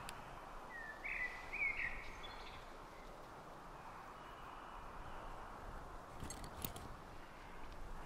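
Quiet woodland ambience, a steady soft hiss, with a bird calling briefly, a few short notes about a second in. Two faint clicks come about six seconds in.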